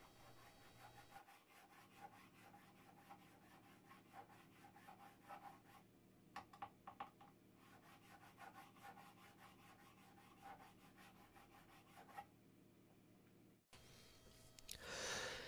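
Faint rasping of a StewMac Z-File fret crowning file worked in quick, short strokes across a fret, putting the rounded crown back onto freshly leveled frets. It stops about three seconds before the end.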